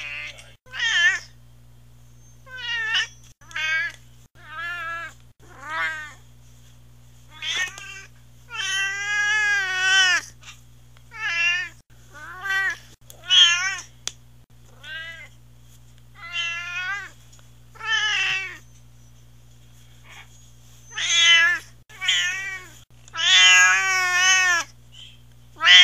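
Domestic cat meowing over and over: a string of about fifteen meows, some short and several long and drawn out, with wavering pitch. A steady low electrical hum runs underneath.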